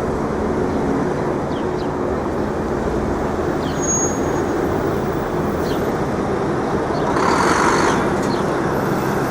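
City street traffic: a steady hum of engines and tyres, with a louder passing hiss about seven seconds in.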